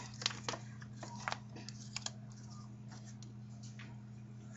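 Scattered light clicks and taps from plastic trading-card holders being handled, thickest in the first couple of seconds and sparse after, over a steady low hum.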